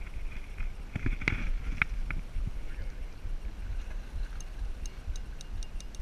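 Spinning fishing reel clicking in a quick, even run of ticks, about five a second, starting about four seconds in, while the rod is bent under a hooked fish. Under it is a steady low rumble of wind and water around the boat.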